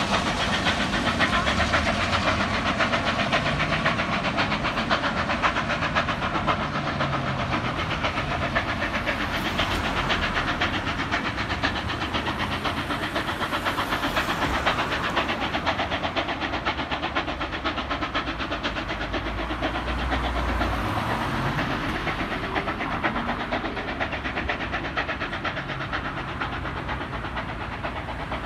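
Steam locomotive 3801, a C38-class 4-6-2 Pacific, working its train away: a steady hiss with a rapid, even exhaust beat, slowly fading as it draws off. A few road vehicles pass faintly.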